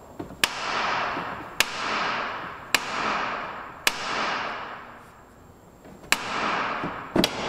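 Small sledgehammer striking a Subaru Forester's steering knuckle to shock the outer tie rod end's tapered stud loose. Four blows about a second apart, each ringing out for about a second, then a pause and a quick double blow near the end.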